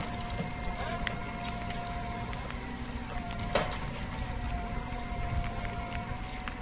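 A motor running steadily, with a constant high whine over a low rumble, and a sharp knock about three and a half seconds in.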